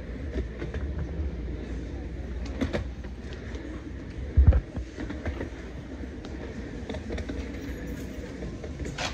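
Casters of a rolling chair rumbling steadily over a concrete warehouse floor, with a few light clicks and one heavy thump about four and a half seconds in.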